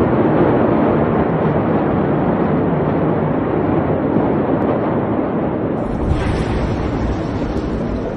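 Steady, loud rushing noise, like wind buffeting a phone microphone; at about six seconds it turns harsher and brighter.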